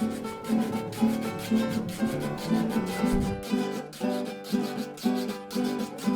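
Rural Colombian string music in carranga style: strummed and plucked strings over an even scraped rhythm, the kind a guacharaca gives.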